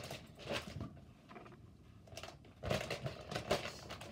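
Rustling and knocking of a package being handled as items are dug out of it: two clusters of short, sharp handling noises, the second and louder one starting near the middle.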